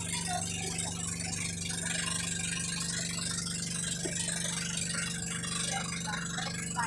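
Boat engine running steadily with a constant low hum, under a hiss of wind and water as the boat moves.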